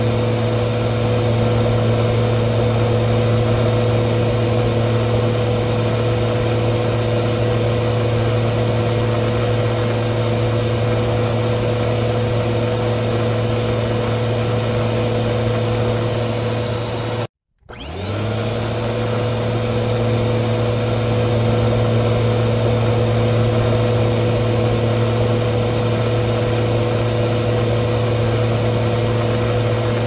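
Vacuum cleaner motor running steadily, a deep hum under a high whine. A little past halfway it cuts out suddenly for a moment, then starts again with its pitch rising as the motor spins back up to speed.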